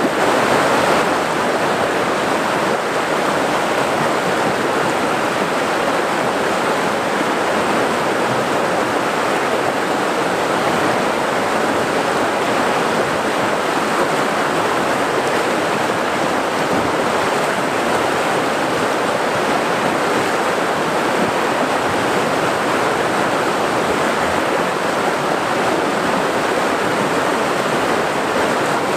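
Whitewater rushing and churning over rocks in a steady roar of water noise.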